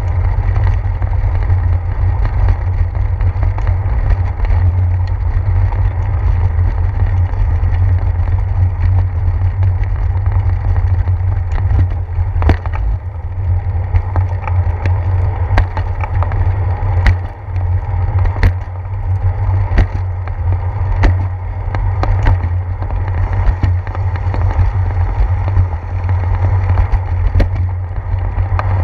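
Bicycle ride heard through a handlebar-mounted action camera: a loud, steady low rumble of wind and road vibration as the tyres roll over wet pavers and pavement. From about twelve seconds in come sharp knocks every second or so as the wheels cross the joints between sidewalk slabs.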